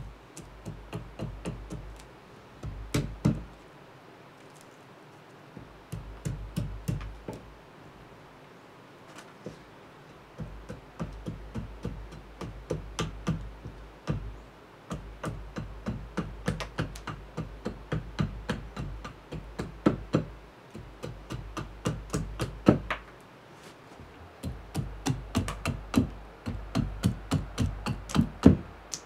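Small carving axe chopping into a birch spoon blank on a wooden chopping block: quick runs of short, sharp knocks, several a second, with a couple of brief pauses in the first third.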